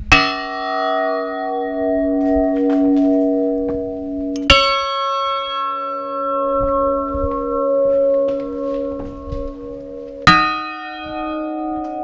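Cathedral bronze church bells, each struck once by its clapper and left to ring out. There are three single strikes: at the start, about four and a half seconds in, and about ten seconds in. Each rings with a slightly different set of pitches, and its hum wavers as it dies away.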